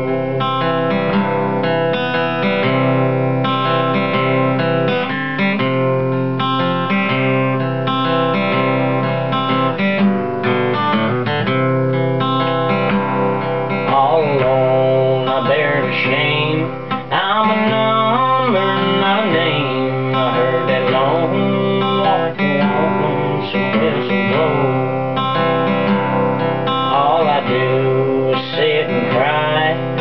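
Steel-string acoustic guitar picked with a flatpick, playing an instrumental break in a country song.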